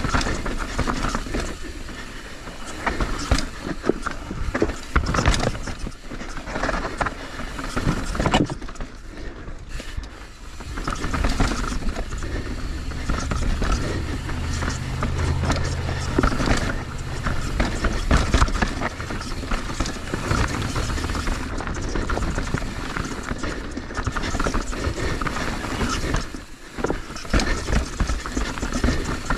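Mountain bike running down a rough, rocky trail: a constant clatter of knocks and thuds from the tyres and wheels hitting rocks, over a rough rolling noise.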